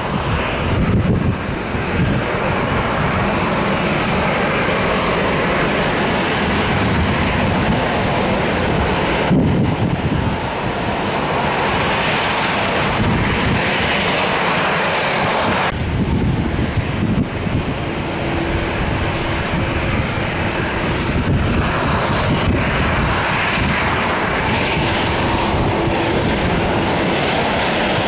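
Airliner engines running loud at the airport, a continuous deep roar with rushing noise. The sound shifts abruptly twice, about a third of the way in and again about halfway.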